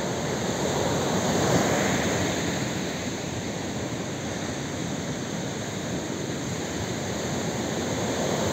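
Sea surf breaking and washing up the beach, a wave swelling about a second and a half in and another near the end.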